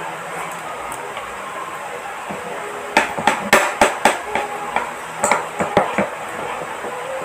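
Metal spoon and fork clinking and scraping against a plate of rice, in two bunches of quick sharp clicks about three and five seconds in.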